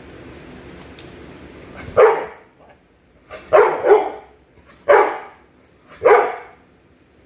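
A dog barking: five short, loud barks, the first about two seconds in and the rest roughly a second apart, two of them close together.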